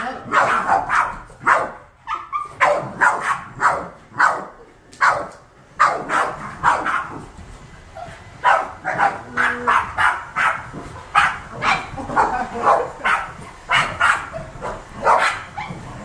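A pack of Boston Terriers barking excitedly at a running stick vacuum cleaner, with many quick overlapping barks, about two or three a second, almost without a break.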